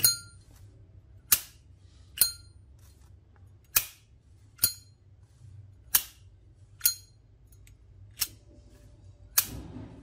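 Brass-cased Zippo lighter's hinged lid flicked open and snapped shut over and over, giving sharp metallic clicks about every second and a half. Every other click, the opening one, carries a brief high ring.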